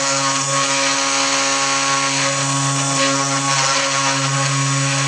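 3018 CNC router's stock 100 W spindle motor running at speed while its end mill carves letters into a wooden block. It makes a loud, steady pitched hum with a hiss of cutting over it.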